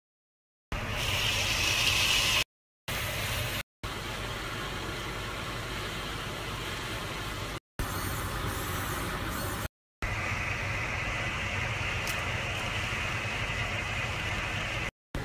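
A steady mechanical hum with hiss, heard as several short clips that each cut off abruptly into silence.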